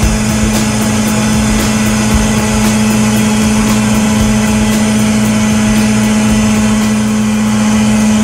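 Smash truck's engine and hydraulics running steadily with a strong, constant hum while the boom arm works its spiked compaction drum and lifts it out of the dumpster.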